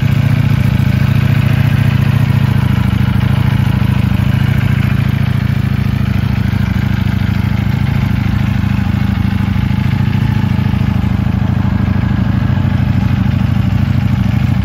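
Ducati Panigale V4 S Corse's Desmosedici Stradale V4 engine idling steadily, with no revving.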